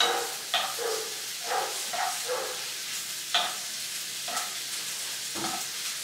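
A spoon stirring and scraping food in a frying pan, in irregular strokes over a light sizzle.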